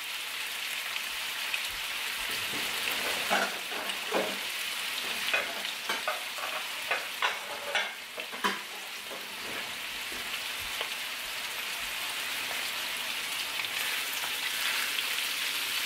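Prawns frying in butter in a wok: a steady sizzling hiss, with a string of short sharp pops or clicks between about three and nine seconds in. Near the end a spatula stirs the prawns through the pan.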